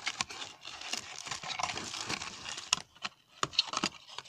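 Plastic wrapping rustling and small cardboard boxes tapping and scraping against each other as a hand digs through a packed cardboard box. The rustling runs steadily for about three seconds, then gives way to a few scattered taps.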